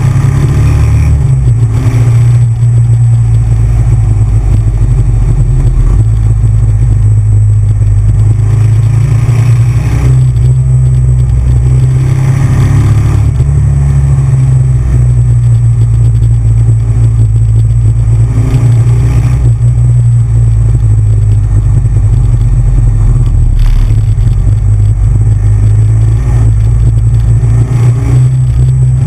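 Big Bear Choppers custom motorcycle's V-twin engine running under way at speed, recorded on the bike. It gives a loud steady drone whose low note shifts a few times as the throttle changes.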